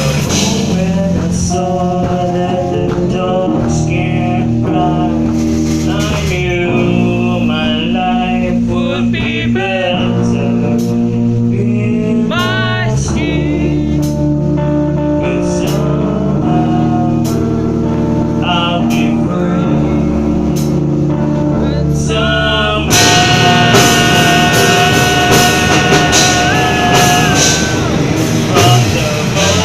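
Music: a song with a male singing voice over guitar and a steady backing, growing louder and fuller about three-quarters of the way through.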